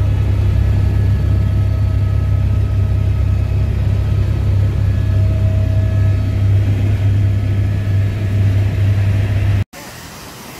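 Airbus H125 helicopter in cruise flight, heard from inside the cabin: a loud, steady low drone of rotors and turbine with faint steady whines above it. The drone cuts off suddenly near the end.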